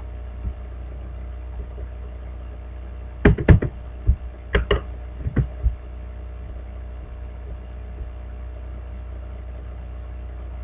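Steady low electrical hum. About three to six seconds in, a quick cluster of sharp clicks and knocks comes from the computer being worked at the desk.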